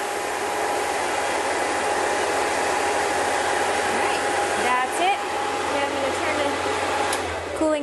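Air Venturi personal 4,500 PSI HPA compressor running as a steady hiss with a faint steady tone through it, switched off and stopping near the end.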